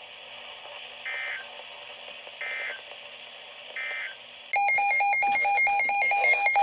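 Emergency Alert System (SAME) data bursts over radio hiss: three short buzzy digital beeps about a second apart, the end-of-message code closing the previous warning. About four and a half seconds in, a much louder, longer digital tone that warbles between pitches begins, the data header of the next alert, and it cuts off sharply near the end.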